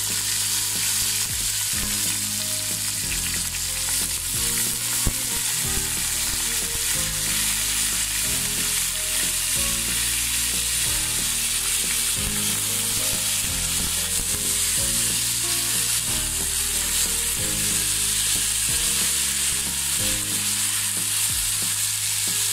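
Raw polao rice frying in hot oil with well-browned onions and whole spices, sizzling steadily as it is stirred in the pan.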